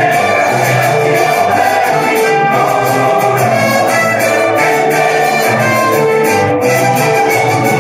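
Mexican folk music with trumpets and violins, played loud at a steady, quick tempo, with a fast even beat of sharp taps running through it.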